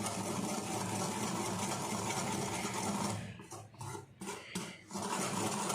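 Dry milk powder, sugar and cornflour being mixed briskly in a bowl, a steady rapid scraping that breaks into separate strokes about three seconds in and picks up again near the end.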